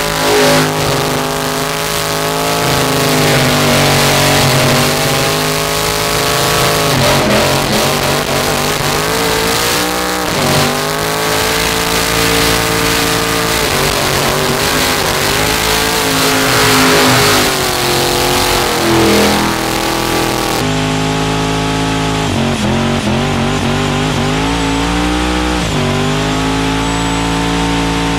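Supercharged burnout truck engine held at high revs during a burnout, dipping and climbing again several times, with a steady hiss of spinning tires over it.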